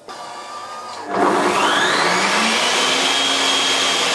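Cecotec Mambo 12090 Habana kitchen robot's chopping blade pulverising sugar into a fine powder. The motor starts faintly, then about a second in jumps to a loud grinding, its whine rising and then holding steady.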